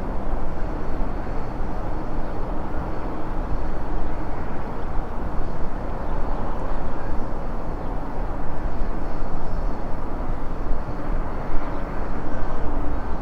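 Airbus A340-300's four CFM56 turbofan engines heard from outside: a steady, loud jet rumble with a faint high whine above it.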